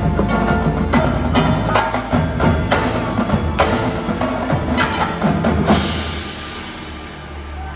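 Winter percussion ensemble playing: marimbas and other mallet keyboards with snare drums, bass drums and cymbals in a run of hard accented hits. A last big hit comes about six seconds in and is left ringing as it fades.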